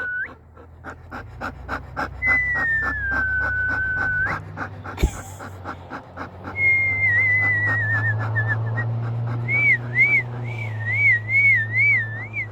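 A person whistling at a dog: long notes that slide down in pitch, then near the end a warbling note that rises and falls about twice a second. The dog pants rapidly underneath, and there is one sharp click about five seconds in.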